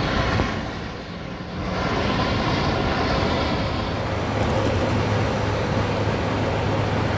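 Steady rumble of vehicle traffic and idling engines, with a low engine hum coming in about halfway through.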